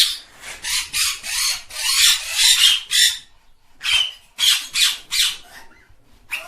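A bird giving harsh, raspy calls: a quick run of them over about three seconds, then, after a pause of about a second, a shorter run of four more.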